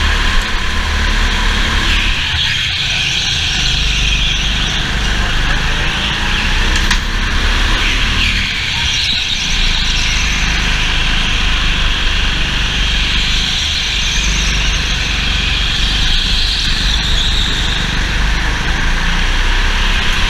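Go-kart engine running at racing speed, heard from onboard the kart. The sound is steady and loud, with small dips in level a few times.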